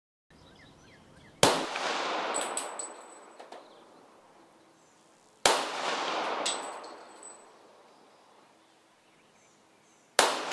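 Three shots from a Les Baer 1911 pistol in .45 ACP, fired slowly about four to five seconds apart. Each shot echoes and fades over a couple of seconds, with a few light metallic clinks after it.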